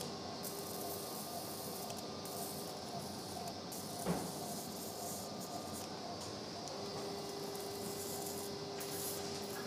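Steady hiss of operating-room background noise, with a single sharp click about four seconds in and a steady electronic tone that comes in past the midpoint and holds to the end.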